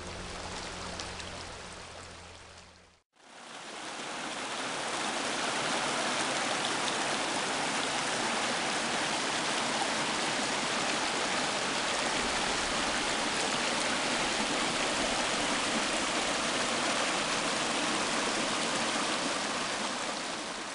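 Small mountain river rushing and splashing over rocks, a steady rush of water. It fades out and breaks off about three seconds in, then fades back in and holds steady.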